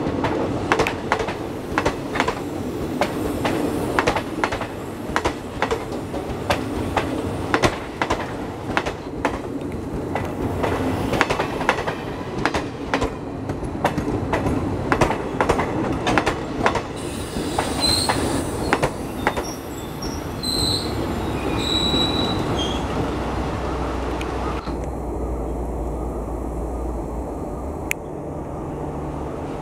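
Passenger train coaches rolling past, their wheels clattering over rail joints in quick, irregular clicks over a steady rumble. The clicks thin out about halfway through, a few brief high wheel squeals follow, and the sound turns duller near the end as the last coach draws away.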